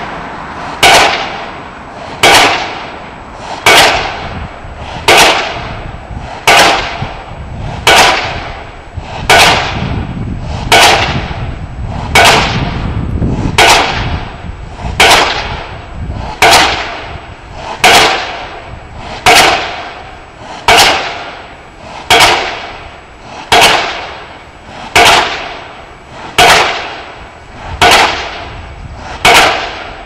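Pile driver hammer striking at a steady pace, about one sharp blow every second and a half, each blow ringing off briefly, with a low rumble between strikes.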